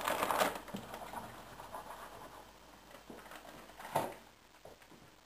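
Dry ribbon pasta tipped from a plastic bag into a pot of boiling water: a short rustling patter at the start that fades over the next couple of seconds. A few light knocks follow, the sharpest about four seconds in.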